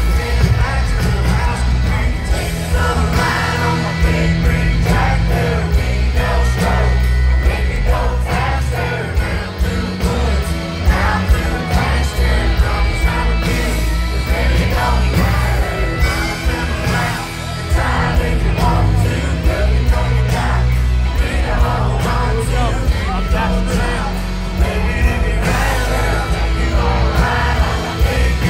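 Live country music performance: a male lead vocal sung over strummed acoustic guitar and a band, with a heavy bass line and a steady drum beat.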